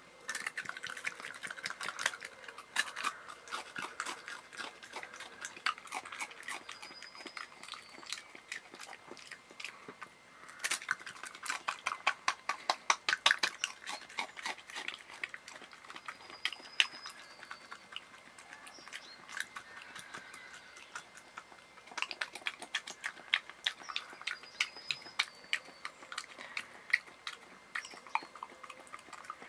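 European badger licking and chewing nut butter off a hand-held crispbread: quick runs of wet clicks and smacks, densest about halfway through.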